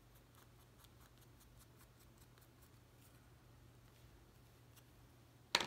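Faint small clicks and light handling of paper and craft tools, then one sharp tap or knock near the end.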